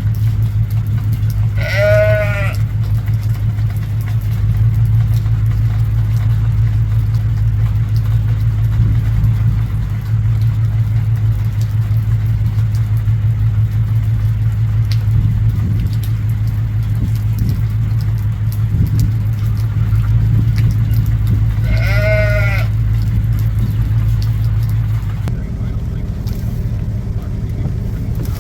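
A farm animal bleats twice, about twenty seconds apart, each call short and wavering. Under it a vehicle engine idles in a steady low drone that shifts near the end.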